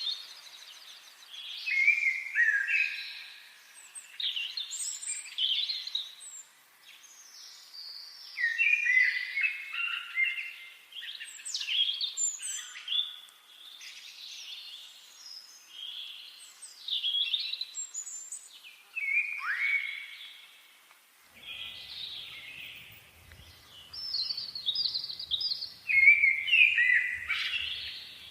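Songbirds singing in a forest: a run of short, high chirping and warbling phrases, one after another with brief pauses.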